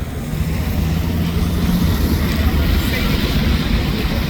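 City street traffic: a motor vehicle's engine running close by, with a steady low rumble and a held low hum in the first couple of seconds.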